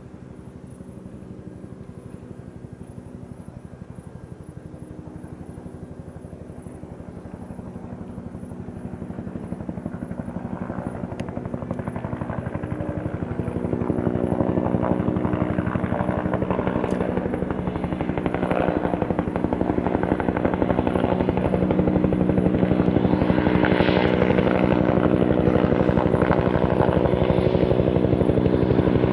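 Firefighting helicopter approaching: a steady rotor and engine drone with a rapid rotor beat, growing louder through the first half and then staying loud.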